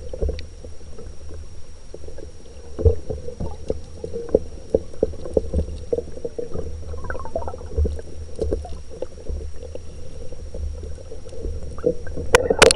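Stream current heard underwater through a submerged camera: a muffled low rumble with many small clicks and knocks of pebbles on the gravel bed, over a faint steady high tone. Near the end come a few loud sharp knocks.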